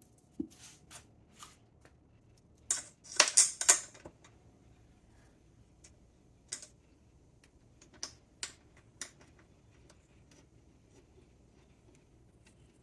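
Hands rummaging through a bag of small hardware, with scattered light clicks and rattles of small parts. A louder burst of rustling and clattering comes about three seconds in.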